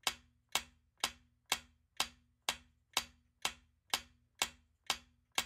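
Quiz countdown-timer sound effect: a clock-like tick repeating evenly about twice a second.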